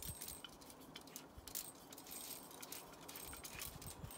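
Light scattered clicks and clinks of small metal table-lamp parts knocking together as they are handled and unscrewed by hand.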